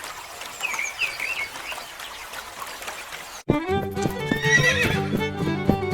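Faint outdoor background with a few short high calls, then background music with fiddle-like bowed tones starts abruptly about three and a half seconds in.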